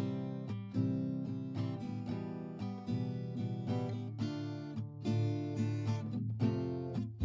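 Background music: a strummed acoustic guitar playing a steady rhythm of chords.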